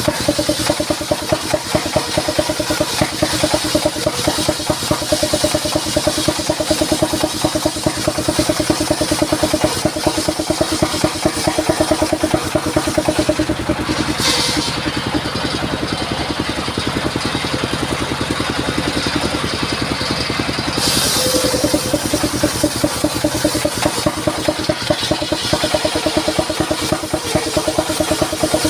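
Engine of a mobile circular sawmill running steadily with a fast, even beat. About halfway through, the high hiss cuts out abruptly for several seconds, then returns just as suddenly.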